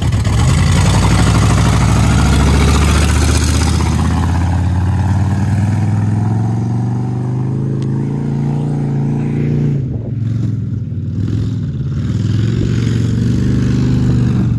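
2005 Ford F-150 pickup engine running loud through an exhaust with the catalytic converters cut out. The revs rise and fall a little as the truck drives, with a brief dip about ten seconds in.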